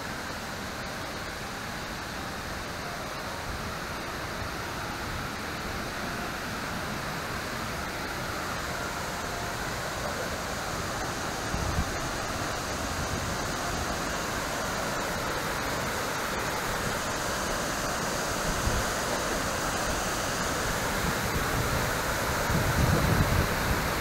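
Wachirathan Waterfall's steady rush of falling water, growing gradually louder as it is approached. A few brief low bumps come about halfway through and again near the end.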